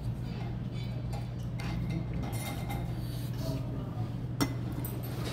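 Metal tongs and a ladle clinking and scraping against a soup pot and a small stainless-steel bowl, with one sharper clink about four seconds in, over a steady low hum.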